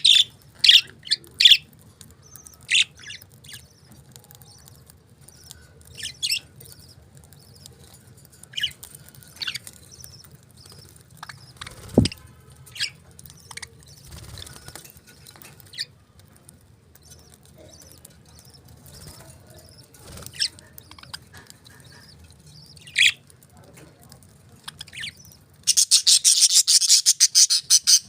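Pet budgies chirping in short, scattered calls. Near the end there are about two seconds of loud, rapid wing flapping, with a single sharp knock about twelve seconds in.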